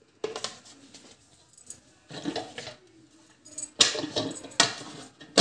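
Plates being handled and shifted on a countertop: several short knocks and scrapes, the loudest in the last second and a half.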